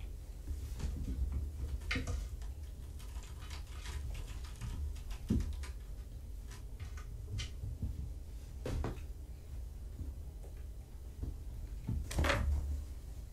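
Scattered light knocks, scratches and rustles from kittens moving and playing about a room, the strongest about two seconds in and near the end, over a low steady hum.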